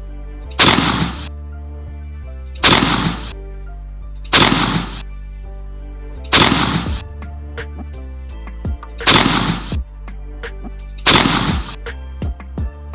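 Six shotgun shots about two seconds apart, each a sharp bang with a short decay, with a few fainter knocks between the later ones. Steady background music runs underneath.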